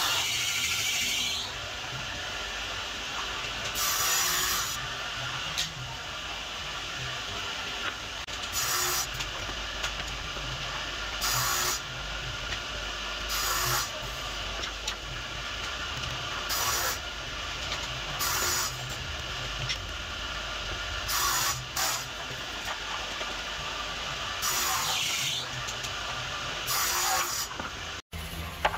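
A wooden box being sanded by hand with sandpaper: short raspy scrapes every two or three seconds over a faint, steady low hum.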